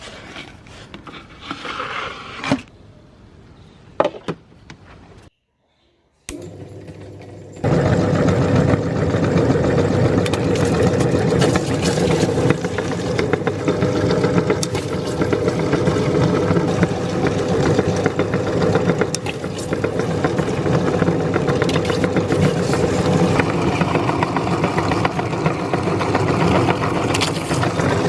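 A few knocks and handling sounds, then an electric meat grinder switches on about eight seconds in and keeps running with a steady motor hum.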